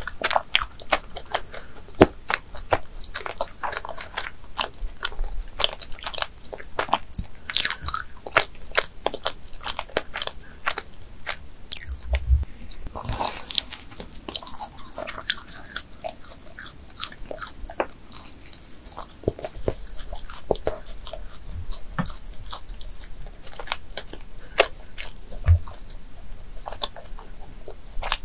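Close-miked chewing and biting of a Krispy Kreme original glazed doughnut topped with whipped cream: a steady, irregular run of small mouth clicks and smacks, with a few louder bites.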